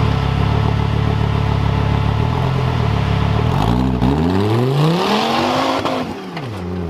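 Off-road competition vehicle's engine running steadily. From about halfway in, it is revved up hard and the pitch falls back again near the end.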